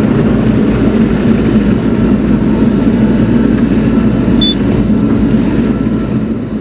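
Bobcat E42 mini excavator's diesel engine running steadily, fading out near the end.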